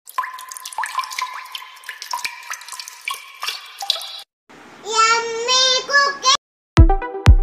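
Logo-intro sound effects: a shimmering sparkle effect of many quick, high tinkling chimes for about four seconds, then a brief wavering voice phrase, then electronic music with a heavy kick-drum beat starting near the end.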